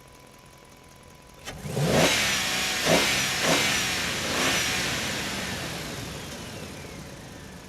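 Engine revving up in four quick rising bursts, just after a sharp click, then fading away slowly.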